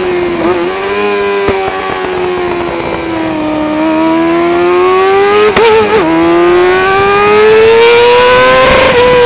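Kawasaki ZXR400 race bike's inline four-cylinder engine howling at high revs through a Pipewerx exhaust can, heard on board. The note sags for the first few seconds, then climbs steadily. It breaks and wavers briefly a little past halfway and peaks near the end.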